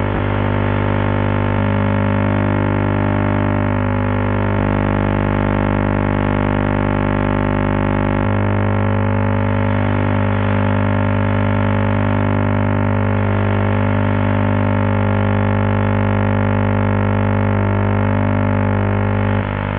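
The vision carrier of a distant analogue TV station on Band I channel E4 (62.249 MHz), received by trans-equatorial propagation and heard as audio because the sound carrier is not coming through. It gives a loud, steady buzz of many evenly spaced tones, whose tone shifts a few times as the picture content changes.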